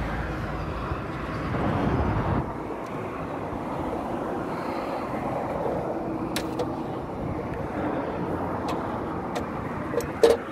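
Steady background rumble with a few sharp metallic clicks, the loudest near the end as steel pliers reach into the opened WABCO air valve body.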